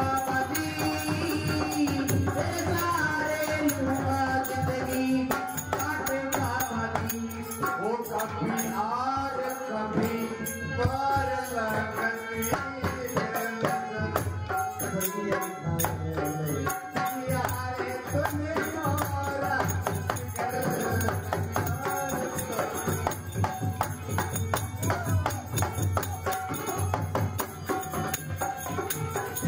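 Live Indian devotional folk music: a man sings over a hand-played dholak drum with jingling percussion.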